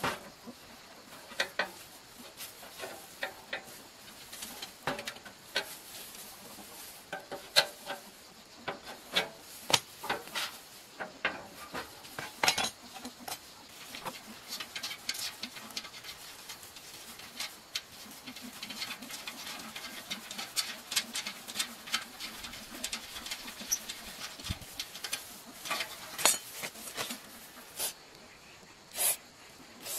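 Irregular clinks and clanks of rusty steel parts being handled: bars of a cassava slicer's frame and its perforated disc knocking and scraping against each other.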